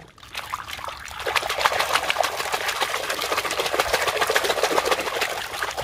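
Water splashing and sloshing as a hand vigorously swishes a toy around in a basin of muddy water to wash it, getting louder about a second in.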